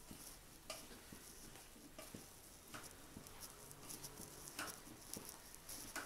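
Faint soft squishing of wet, soaked idli rava and grated coconut being squeezed and mixed by hand in a steel bowl, with a few light clicks at irregular intervals.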